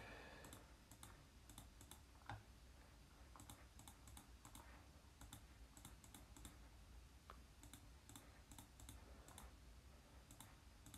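Faint, irregular clicks of calculator buttons being pressed one after another, over near-silent room tone; one press is a little louder about two seconds in.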